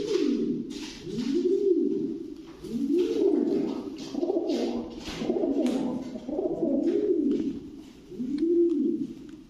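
Fancy domestic pigeons cooing: a steady string of low coos, each rising and falling in pitch, about one a second.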